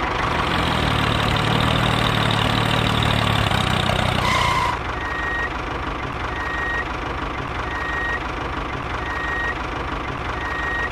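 Heavy vehicle engine running with a low rumble for about four and a half seconds, ending in a short hiss. Then a reversing alarm beeps steadily, about once every 1.3 seconds, over a quieter idle.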